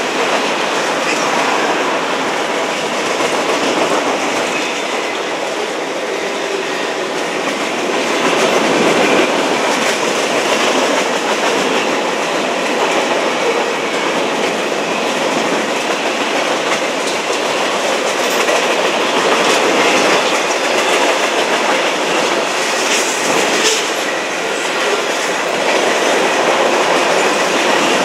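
Freight cars of a passing CSX freight train (boxcars and tank cars) rolling by: the steady, continuous noise of steel wheels running on the rails.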